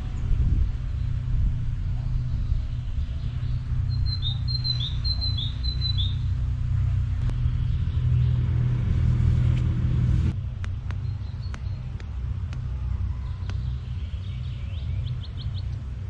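Steady low motor rumble that drops in level about ten seconds in, with a bird chirping a quick run of high notes partway through.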